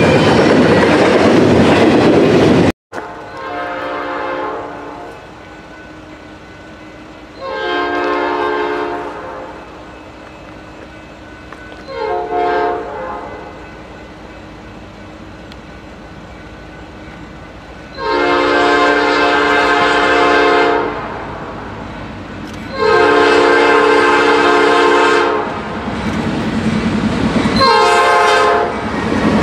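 Double-stack freight cars rumbling past with a clickety-clack of wheels, cut off after about three seconds. Then an approaching Norfolk Southern freight locomotive sounds its multi-chime air horn in long and short blasts, the grade-crossing pattern of long, long, short, long. The blasts grow louder, and the locomotive's rumble rises near the end as it passes close by.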